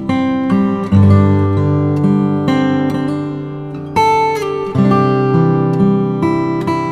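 Background music: acoustic guitar playing chords, with new chords struck about every second.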